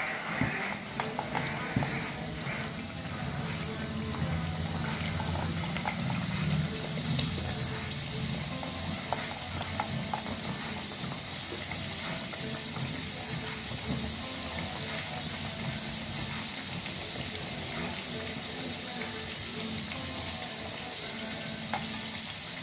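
Gujiyas, stuffed maida pastries, deep-frying in hot oil: steady sizzling and bubbling with many fine crackles.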